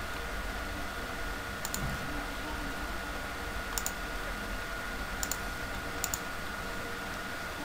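Computer mouse clicks: four quick double clicks spread over the few seconds, over a steady faint electrical whine and hiss.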